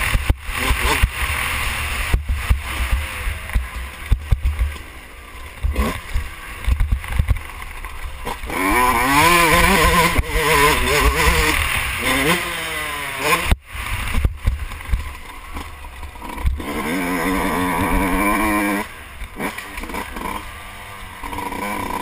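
Yamaha YZ125 two-stroke single-cylinder dirt bike engine revving hard, its pitch rising and falling over and over with the throttle, loudest in two stretches about nine and seventeen seconds in. Wind buffets the helmet-mounted microphone throughout.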